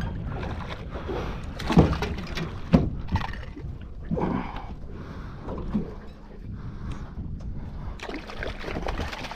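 Water sloshing and slapping around the hull of a small boat, with wind rumble on the microphone. Two sharp knocks stand out, a little under two and about three seconds in.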